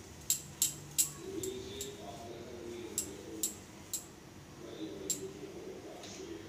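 Hands shaping a mashed potato and boiled egg mixture into balls over a plate: sharp, light clicks at irregular intervals, about nine of them, most in the first four seconds.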